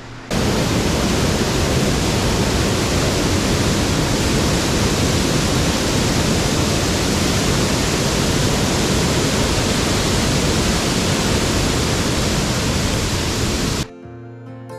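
Loud, steady rushing of a mountain stream's water close to the microphone, cutting in and out abruptly.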